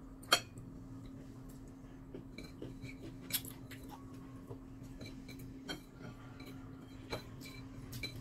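Fingers picking up rice from a ceramic plate, tapping and scraping it in a few sharp light clicks and ticks, the loudest about a third of a second in. A steady low hum runs underneath.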